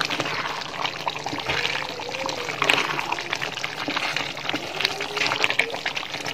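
A spoon stirring thick beef masala gravy in a large metal pot: wet squelching and sloshing, with scattered clicks and scrapes of the spoon against the pot.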